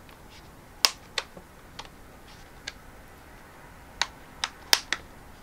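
Plastic clips of the Kobo Mini e-reader's snap-on back cover clicking as fingers prise it off the body: a scatter of sharp clicks, two about a second in, a couple of faint ones mid-way and a quick cluster of four near the end.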